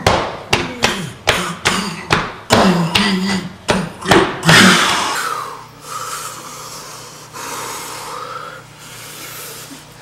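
A man grunting hard over a quick run of sharp thumps, a bit more than two a second, for about five seconds, then panting heavily as the thumps stop.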